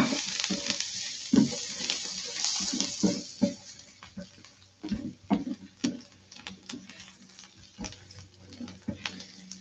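Minced garlic sizzling in oil in a nonstick pan while a silicone spatula stirs it, with short scrapes and taps of the spatula against the pan. The sizzle is strongest at first and fades after about three seconds, leaving mostly the stirring sounds.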